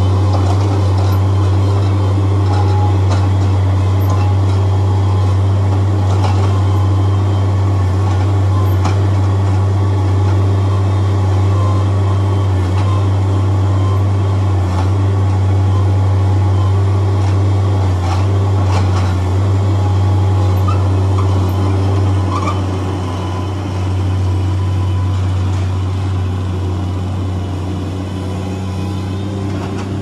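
Engine of a Dingo compact tracked loader running with a steady drone as the machine travels, easing a little past the middle with a few faint knocks along the way.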